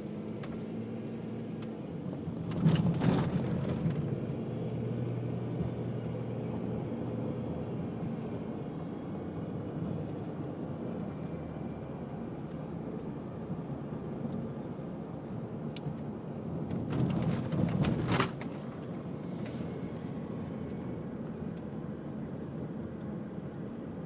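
Engine and road noise heard from inside a moving vehicle, a steady low hum. Two louder rushing swells stand out, one about three seconds in and one around seventeen seconds in.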